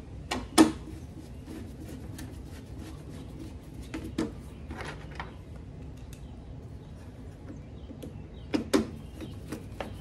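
Scattered clicks and knocks of hand tools and small self-tapping screws against the wire-feed housing of a MIG welder as the drive motor is screwed back in place. The loudest knock comes about half a second in, another near four seconds, and two close together about eight and a half seconds in.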